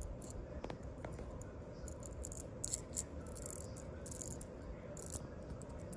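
Small plastic gears of a toy car's pull-back motor clicking and rattling as the wheels are turned by hand, with quick clusters of ticks about halfway through and again near the end, over a low steady hum.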